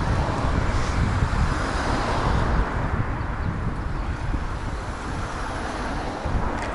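Wind buffeting the microphone of a camera on a moving bicycle, a steady gusty rumble, with road traffic noise swelling about one to two seconds in.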